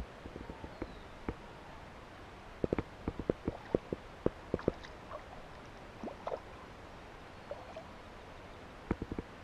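Quick light taps and knocks from a small bass and its lure being handled aboard a kayak: a burst of about a dozen sharp taps in the middle and a short group near the end.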